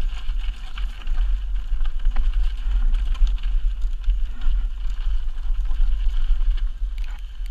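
Wind buffeting the microphone of a mountain bike descending rocky dirt singletrack, with tyres crunching over loose stones and scattered small clicks and rattles from the bike.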